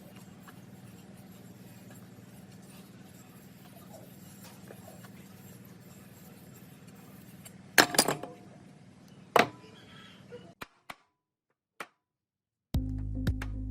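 Two sharp metallic clinks about a second and a half apart over a low steady workshop hum, followed by a few faint ticks. Background music starts near the end.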